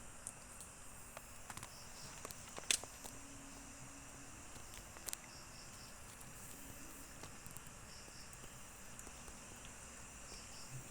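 Faint night insects, crickets, chirping in short pairs every couple of seconds over a steady high drone. A few sharp clicks, the loudest about a third of the way in.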